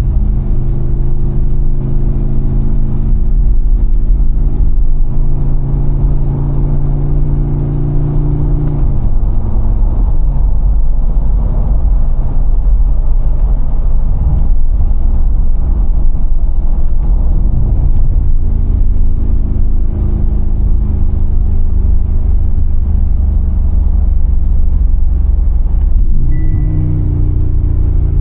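Mercedes-AMG G63's 4.0-litre twin-turbo V8 running while driving. Its note holds steady, falls away about nine seconds in, and rises quickly again near the end as the engine speed picks up.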